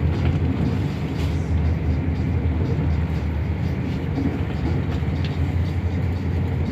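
Passenger train carriage at speed, heard from inside: a steady low rumble of running noise that holds even throughout.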